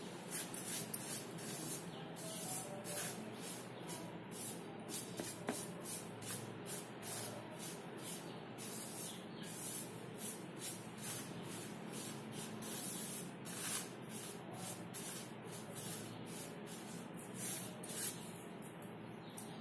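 Fingers rubbing and swirling dry spice powders and flour together on a plate, a soft scratchy hiss repeated in short strokes a couple of times a second.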